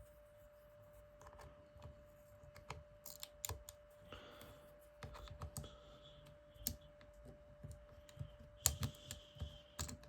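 Light, irregular clicks and taps of a plastic prying tool against an iPhone 3GS's logic board as its display connectors are pried loose, a few louder near the middle and toward the end.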